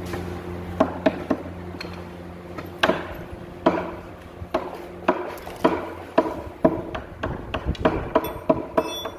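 Hammer striking the edge of a wooden raised-panel cabinet door frame: a string of sharp wooden knocks, a few spaced out at first, then about two a second. A steady machine hum runs underneath and stops about halfway through.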